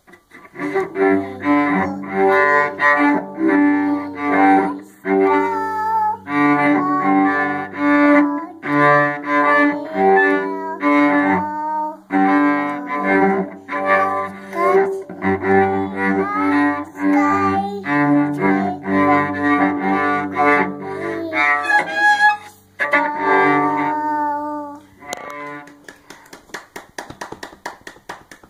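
A cello bowed by a small child: one bow stroke after another across the strings, with a child's high voice singing along in places. The bowing stops about three seconds before the end.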